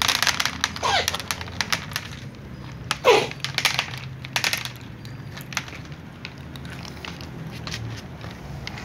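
Several cats crunching dry kibble, a quick run of crisp crunches and clicks. Two short meows falling in pitch cut through it, about a second in and again about three seconds in, the second the louder.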